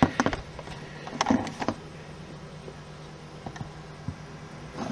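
Handling noise from a handheld camera being carried round a workshop: a few sharp clicks and knocks near the start and again about a second in, then fainter ticks, over a steady low hum.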